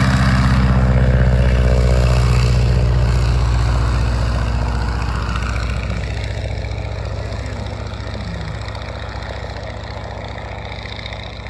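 Biplane's radial engine at full power on its takeoff run, passing close with its pitch dropping, then fading steadily as the plane climbs away.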